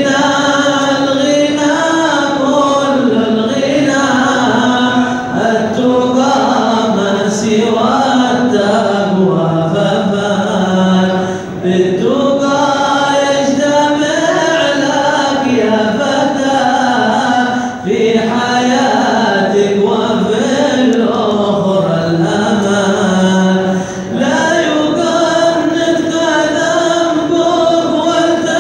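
A group of men chanting an Arabic qasidah (devotional poem) together, unaccompanied, in long sung phrases with held, gliding notes and a brief breath break about every six seconds.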